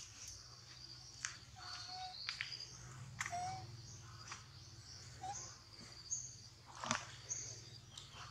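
Faint steady insect drone, with scattered short chirps and clicks over it.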